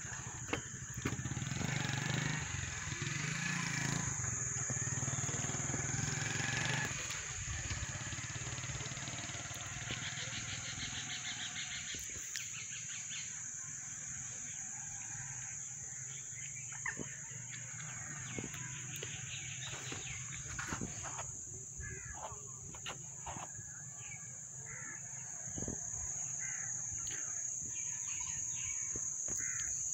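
Outdoor ambience: a steady high-pitched insect chirring with scattered bird chirps, more of them in the second half, over a low rumble that is strongest in the first seven seconds.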